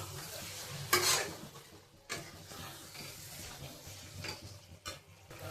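A utensil stirring and knocking against a pan of frying paneer, with a sharp knock about a second in, a few lighter ones after, and a faint sizzle underneath.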